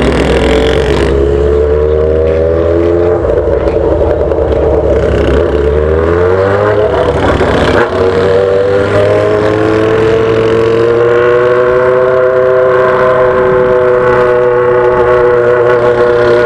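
Yamaha XJ6's 600 cc inline-four running through a muffler-less 8-inch straight-pipe exhaust while ridden, its note rising and falling with the throttle. It dips briefly about eight seconds in, then settles into a steadier, higher note. Wind rumble is heard on the microphone in roughly the first half.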